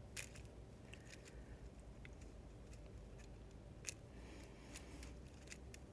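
Near silence: room tone with a few faint, sharp clicks, the clearest near the start and about four seconds in.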